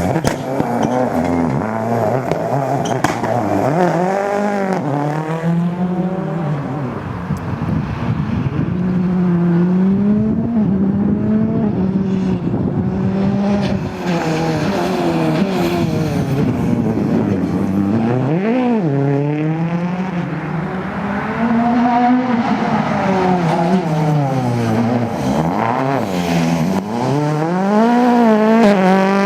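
Rally car engines driven hard, the revs climbing and dropping again and again through gear changes and lifts, with some tyre squeal.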